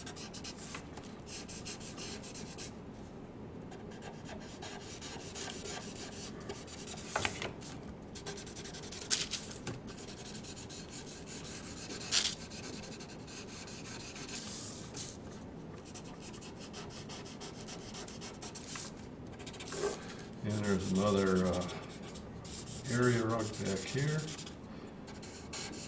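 Grayscale felt-tip marker scrubbing back and forth across drawing paper, a steady run of short scratchy strokes filling in a shaded area, with a few sharp ticks.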